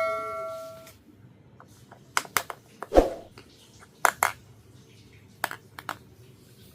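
A small metal piece rings and dies away in the first second, then light clicks and taps follow as small hard pieces of a miniature toy kitchen set are handled and set down, the loudest about three seconds in.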